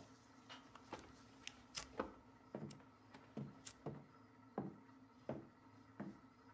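Faint, irregular clicks and scrapes of cigarette lighters being struck as several men light cigarettes, roughly one every half second to a second, over quiet room tone with a low steady hum.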